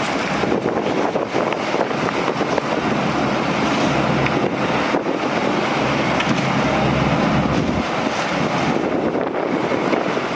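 Strong wind blowing loudly across the microphone, with a low engine hum under it that is strongest in the middle.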